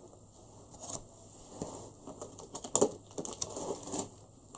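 Plastic-wrapped meat packages rustling and clicking as they are lifted out of a cardboard shipping box, in scattered light handling noises, a few sharper ones near the middle.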